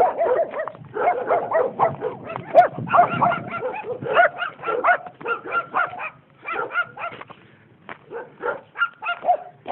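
Several dogs barking: many short barks, often overlapping, several a second, thinning out for a few seconds after the middle.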